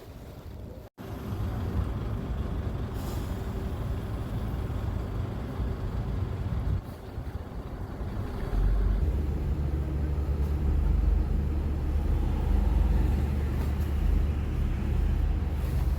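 Low, steady rumble of road traffic or a running vehicle, getting louder about eight and a half seconds in.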